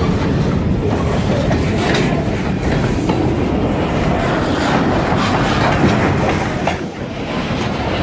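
Freight cars of a Kiamichi Railroad train rolling past, with a steady rumble and wheels clacking over the rail joints. A few brief, faint high wheel squeals are heard.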